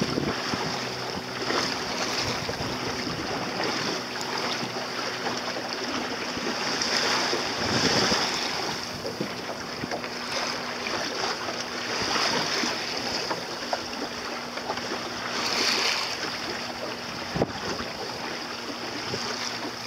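Water rushing and splashing along the hull of a small sailing dinghy under way, with wind blowing on the microphone. The rush of water swells louder twice, about eight and sixteen seconds in.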